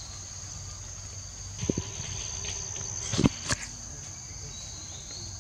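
Steady high-pitched drone of insects. A few brief sharp noises break in around the middle of the clip.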